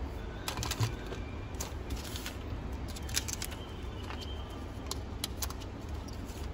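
Light clicks and short rustles of hands handling an iPhone 12 front glass and peeling its protective film, over a steady low hum.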